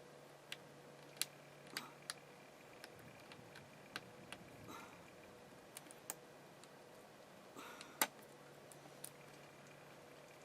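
Scattered light clicks and taps from hands handling a laptop's plastic screen housing and LCD panel, with a few brief scrapes; the loudest click comes about eight seconds in.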